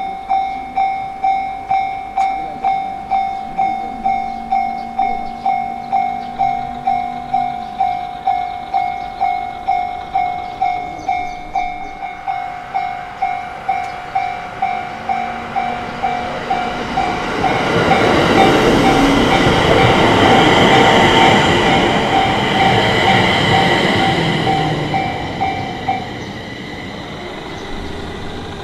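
Japanese level-crossing warning bell ringing in an even, rapid rhythm, nearly two strikes a second. From about two-thirds of the way in, a Yamagata Shinkansen train rushes loudly through the crossing over several seconds. The bell stops as the train's noise fades near the end.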